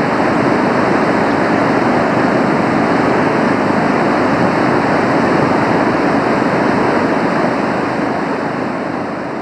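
Water pouring through the Oker dam with heavy spray, a loud steady rush that eases slightly near the end; the reservoir is close to overflowing.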